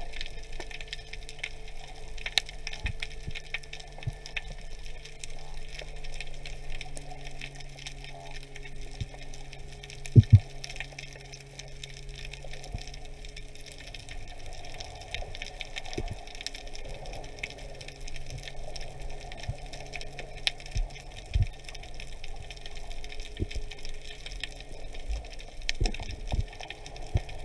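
Underwater ambience: steady fine crackling and scattered clicks over a faint steady hum. A loud, sharp double knock about ten seconds in.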